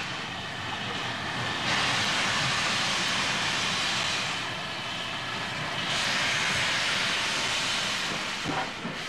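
Canadian-built, oil-fired steam locomotive hauling a goods train and hissing steam in two long surges, the first about two seconds in and the second about six seconds in, with a quieter stretch between.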